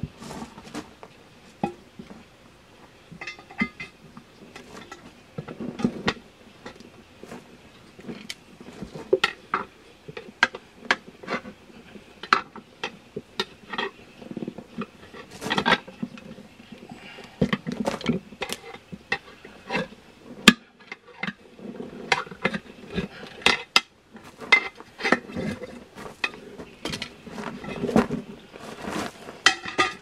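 Metal pry bars clinking and knocking against a wheel rim as a tire bead is levered over it by hand, in many irregular clanks.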